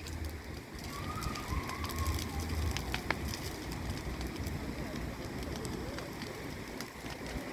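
Large wood bonfire crackling, with scattered sharp pops over a steady hiss of burning.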